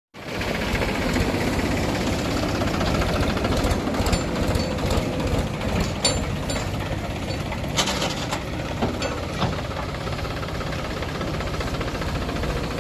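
Diesel engine of heavy earth-moving machinery running steadily, with a few sharp metallic clanks about four, six and eight seconds in.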